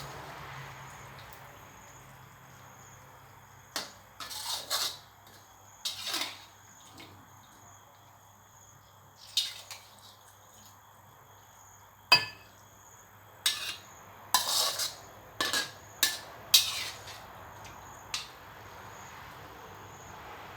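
Metal spoon clinking and scraping against a dish, about a dozen short, scattered strokes, some ringing briefly.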